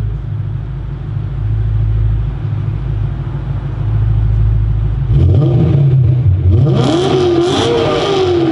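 BMW E90 M3's V8 through an aFe aftermarket exhaust, idling with a steady low rumble, then revved about five seconds in, its pitch rising and falling through a few quick revs near the end, the loudest part.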